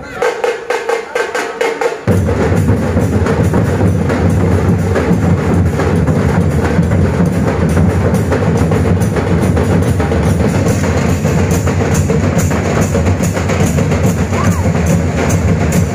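Group of dhol drums beating a fast, dense rhythm, loud and continuous; the deep bass strokes join in about two seconds in.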